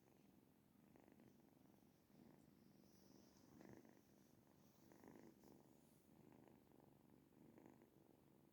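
Sleeping kitten breathing with a very faint low rasp that swells with each breath, a little over a second apart, like soft snoring or purring.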